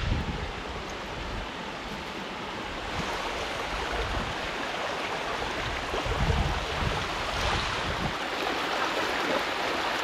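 A small creek running, a steady rush of water, with a gust of wind on the microphone about six seconds in.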